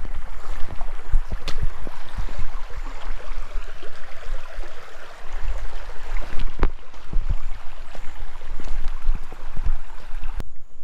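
Creek water running, with low bumps and a few sharp clicks over it; the sound cuts off suddenly near the end.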